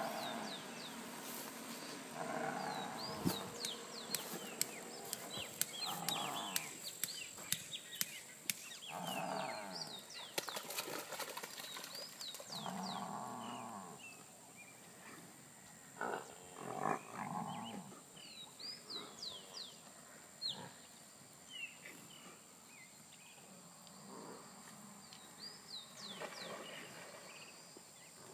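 Water buffalo lowing, a string of short calls a few seconds apart, with small birds chirping.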